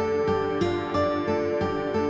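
Background music: a steady run of pitched notes, about three a second.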